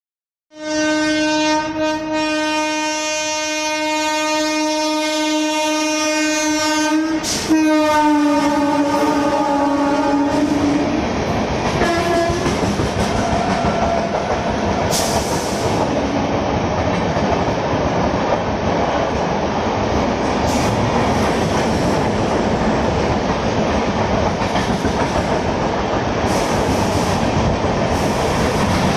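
Electric train sounding a long horn blast of about ten seconds as it comes through the station, the pitch dropping a little midway as it passes, then a short second blast. After that the wheels rumble and clatter steadily over the rails as the train runs past.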